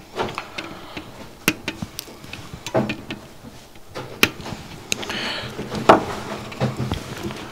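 Scattered small clicks and knocks of pliers and components being handled on a perfboard at a workbench, with a short rustle about five seconds in and a sharper knock just before six seconds.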